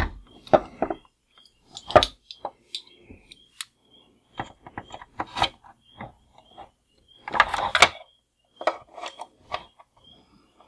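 Hard plastic parts of a 1988 G.I. Joe Cobra BUGG toy vehicle clicking and knocking as hands pry at and spread the tabs holding a wheel, which wiggle without coming free. The clicks are scattered, with a louder one about two seconds in and a tight cluster of knocks around seven seconds in.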